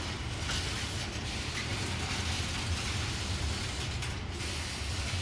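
Container freight train wagons rolling past, a steady rumble of steel wheels on rail.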